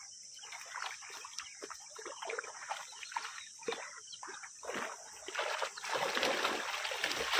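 Water splashing and dripping around a fish trap full of live fish, in small irregular splashes that grow into a steadier splashing about five and a half seconds in.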